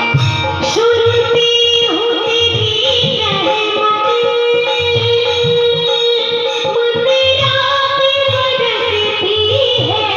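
Hindi devotional bhajan music: a held melody line over a steady hand-drum beat.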